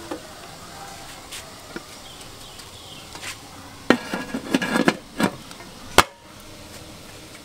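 Aluminium steamer pot and its domed lid clattering as the lid is fitted: a run of ringing metal knocks and scrapes about four seconds in, then one sharp metallic clank near six seconds as the lid seats.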